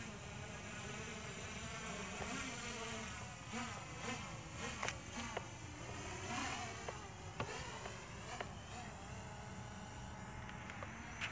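Quadcopter drone (MJX Bugs 2W) buzzing as it descends to land, the pitch of its propeller whine sliding up and down as the throttle changes. A few light clicks sound over it.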